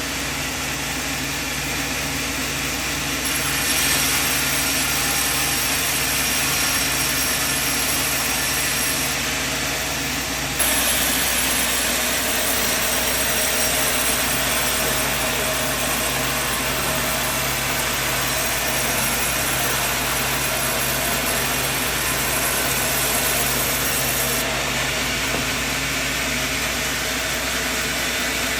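Sawmill machinery running: a steady mechanical noise with a low engine hum. The noise changes abruptly about four seconds in, again about ten seconds in, and near the end.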